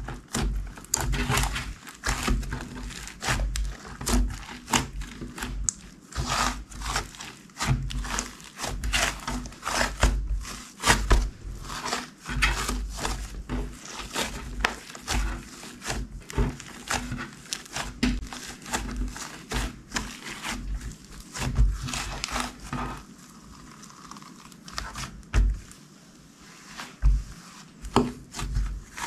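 Slime being squeezed and folded by hand, giving a quick, irregular run of sticky clicks and pops with soft low thuds. It eases to a quieter stretch about two thirds of the way through, then picks up again.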